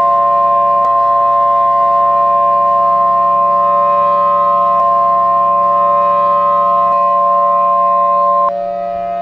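Emergency-alert warning tone: a single steady pitch, the weather-radio warning alarm tone, held over a sustained chord of lower steady tones. The alarm tone cuts off sharply near the end, leaving the chord running.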